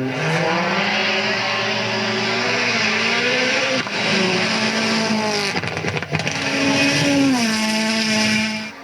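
Rally car engine at high revs, its pitch climbing and then dropping sharply several times as the driver shifts and lifts between corners.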